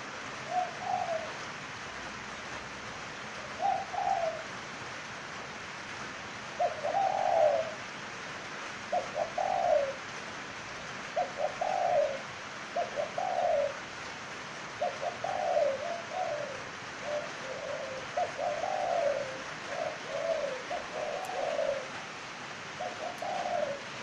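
Spotted dove cooing: short coo phrases repeated over and over, a few seconds apart at first, then about one every second.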